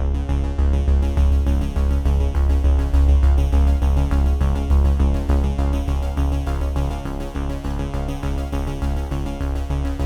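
Background electronic music with a steady beat, heavy bass and synthesizer.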